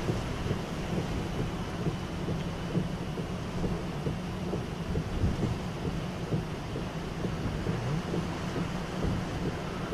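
Hurricane wind gusting against the microphone in a low, rumbling buffet, over the steady hiss of heavy rain.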